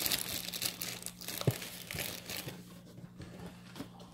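A dog crunching and chewing dog biscuits: a dense crackling that fades out about two and a half seconds in, with one sharp knock about a second and a half in.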